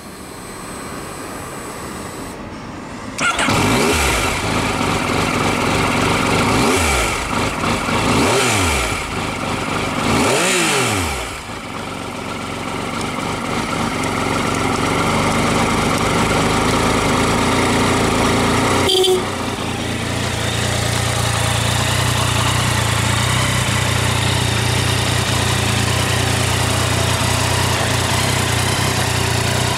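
Yamaha MT-09 Tracer's 847 cc crossplane inline-three on its stock exhaust, firing up about three seconds in. It is then blipped three times, the revs rising and falling each time, before settling into a steady idle. A short click comes about two-thirds of the way through, after which the idle sounds deeper.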